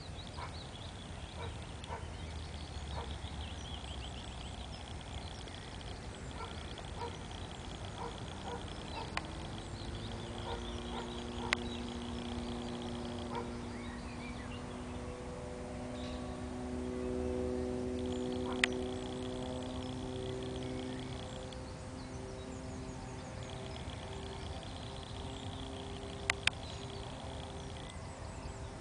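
Outdoor marsh and meadow ambience with birds calling now and then. From about ten seconds in, a steady hum with several pitches joins them, like a distant motor, growing a little louder past the middle.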